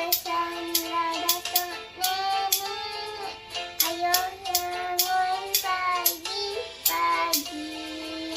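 A child singing a Malay folk song, accompanied by spoons clicked together in a steady beat about twice a second.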